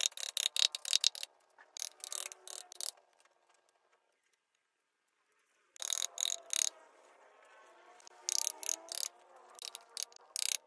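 Hand carving tools working wood: quick, irregular sharp cutting and scraping strokes in clusters. They stop dead for nearly two seconds about four seconds in, then carry on.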